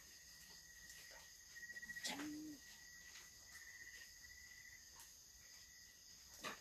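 Faint, steady chirring of night insects such as crickets. About two seconds in there is a brief rapid trill and a short low hum.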